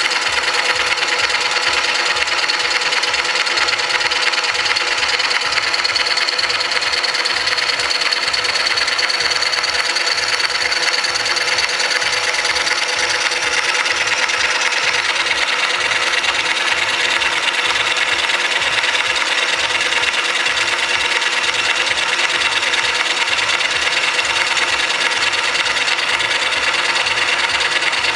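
VM-130 milling machine running, its cutter milling metal: a steady scraping cutting noise over the whine of the motor and gearing, with a fast low pulsing throughout.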